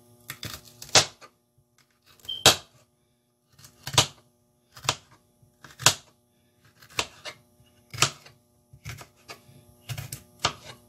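Kitchen knife cutting through peppers and onion onto a cutting board: sharp, separate chops about one a second, a dozen or so, some in quick pairs.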